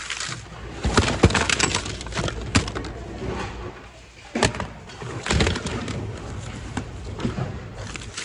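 Hands rummaging through a bin of mixed secondhand goods: plastic CD cases, a plastic frisbee and a metal tin lid knock and clatter irregularly, with rustling of cloth and plastic between. The sharpest knocks come about a second in and about four and a half seconds in.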